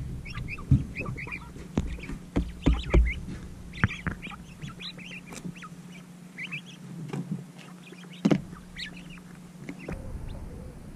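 A small group of coturnix quail making many soft, short chirps and peeps, with scattered taps and knocks (the sharpest about eight seconds in) over a low steady hum.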